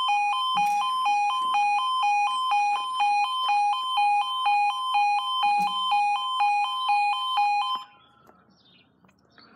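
Level crossing warning alarms (E2S sounders) sounding a rapid alternating two-tone warble while the crossing closes for a train, then cutting off suddenly about eight seconds in.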